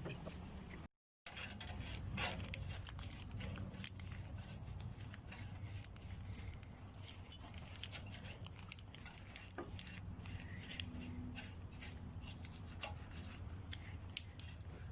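Paintbrush rubbing and scraping on the frame of a rice-machine sieve as it is painted: a run of small scratchy strokes and taps over a low steady hum, with a brief total dropout about a second in.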